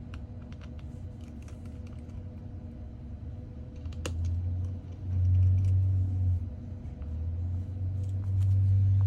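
Light clicks and taps of small tools and parts during disassembly of an iPhone 14, with a sharper click about four seconds in. After that click a low hum comes in and grows louder, fading briefly and returning near the end.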